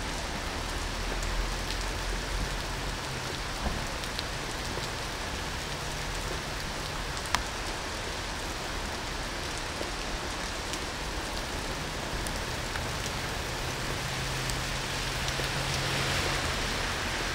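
Heavy rain falling on a wet city street and pavement, a steady hiss with scattered drip ticks, one sharp tick about seven seconds in. A low hum of idling vehicle engines runs underneath, and the rain hiss swells slightly near the end.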